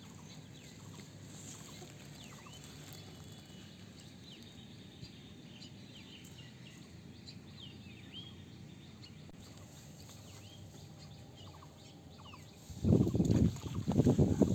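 Quiet outdoor background with faint, scattered bird chirps. About thirteen seconds in, a run of loud, rough low bursts starts and goes on to the end.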